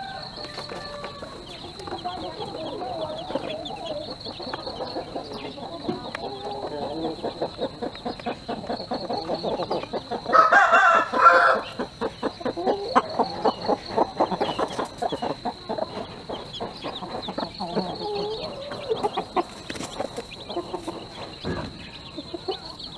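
A mother hen clucking softly and chicks peeping as they peck grain from a plastic feeder tray, their beaks ticking rapidly on it. About halfway through a rooster crows loudly once.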